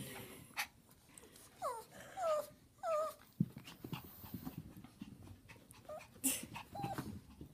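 A papillon puppy and pugs at play: one dog gives three short whining yelps that fall in pitch, about two to three seconds in, with a few shorter yips near the end. Scuffling and thumps run between the calls.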